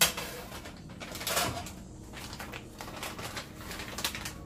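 Kitchen handling noises: a sharp knock at the start, a rustle about a second and a half in, then a run of light clicks and rustles.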